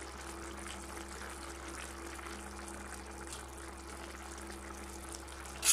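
Shol fish pieces simmering in oil and spiced curry in a steel pan, a steady gentle bubbling hiss with faint crackles. A steady low hum runs underneath.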